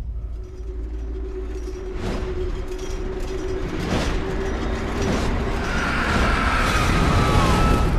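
Film-trailer sound design of mechanical rumbling and creaking, with a held metallic whine and sharp hits about two, four and five seconds in, then a higher screeching tone that bends down near the end.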